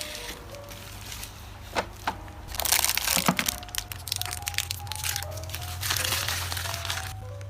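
Packaging crinkling and rustling as it is handled, in two stretches with a few sharp clicks, over soft background music.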